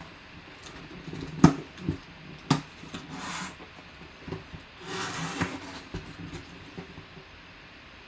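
Cardboard shipping box being handled and opened by hand: a few sharp knocks about a second and a half in, then the flaps and an inner cardboard box scraping and sliding against each other, with light taps after.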